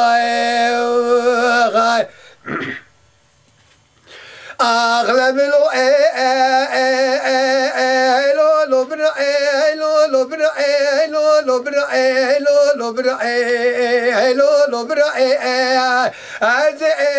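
A man singing unaccompanied in a strong voice: long held notes with wavering ornaments. He stops about two seconds in for a pause of two to three seconds, then sings on.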